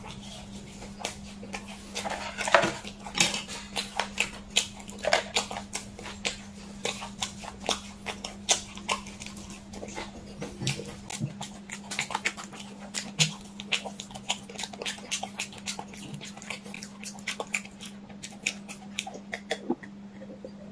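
Close-miked eating sounds: chewing and mouth smacking with many sharp wet clicks at an irregular pace, over a steady low hum.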